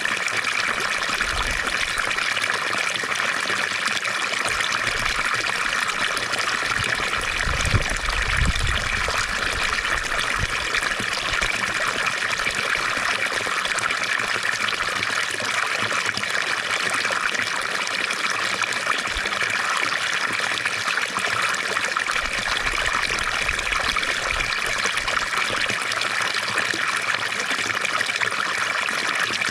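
Water from a fountain trickling and splashing steadily, with a brief low rumble about eight seconds in.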